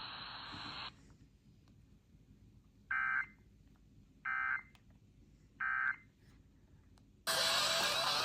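Three short EAS end-of-message data bursts from a NOAA Weather Radio broadcast, each a buzzy two-pitch warble about half a second long, about a second and a half apart. Before them, radio hiss cuts off about a second in. Near the end the sound switches abruptly to a louder FM broadcast.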